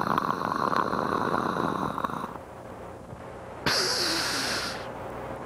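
Explosion sound effect: a sudden crackling blast that lasts about two seconds, followed after a short gap by a brief hissing whoosh of about a second.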